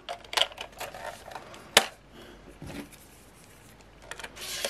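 Small clicks and taps of plastic parts being handled at the battery compartment of a weather station's outdoor sensor unit, the sharpest about two seconds in. A soft rustling starts near the end.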